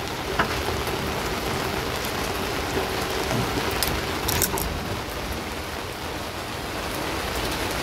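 Heavy rain falling steadily, an even hiss, with a faint steady hum underneath in the first half and a few short clicks about half a second and four seconds in.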